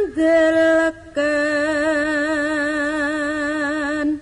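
A solo voice singing a slow Javanese verse with no accompaniment: a short note after a downward slide, a brief break, then one long note held with a wide, even vibrato that stops just before the end.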